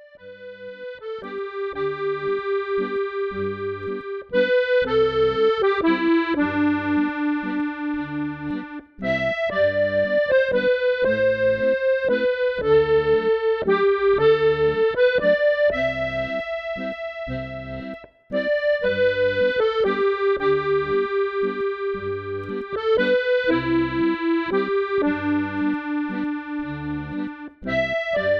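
Accordion playing a slow Scottish air, the held melody notes over a steady bass-and-chord accompaniment on the left-hand buttons, with short breaks between phrases.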